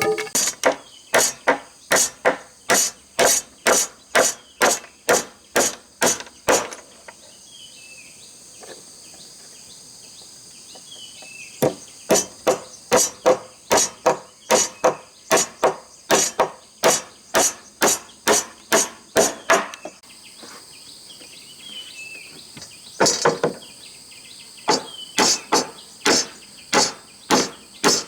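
Hammering in three runs of quick, even blows, about three a second, with pauses between runs. A steady high buzz of insects runs underneath.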